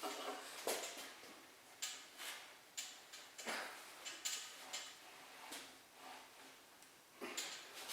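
Faint, irregular light clicks and knocks of hand tools and metal engine parts being handled.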